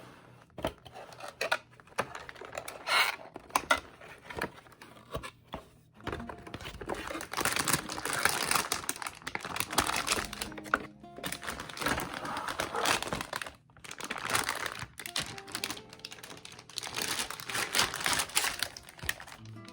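Packaging crinkling and rustling in irregular spells as it is handled, with small clicks and knocks, over soft background music.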